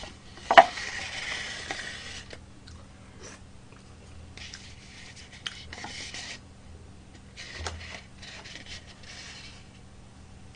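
Chopsticks scraping and rubbing around the inside of a disposable takeout bowl, in three spells of about two seconds each, with a sharp click about half a second in.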